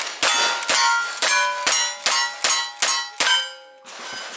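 A rapid string of gunshots at steel targets, about two or three a second, each hit answered by the ringing clang of the steel plate. The string stops about three and a half seconds in, after which a few fainter strikes follow.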